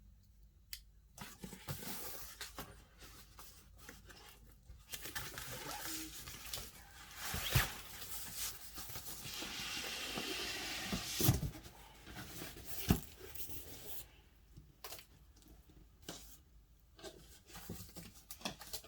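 Cardboard shipping box being opened: packaging tearing and rustling, with a long rip about ten seconds in and sharp knocks of cardboard against cardboard.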